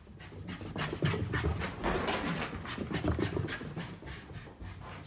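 Jack Russell terrier in a bout of zoomies, panting fast in quick rhythmic breaths while its paws thud on carpet as it runs, loudest through the middle.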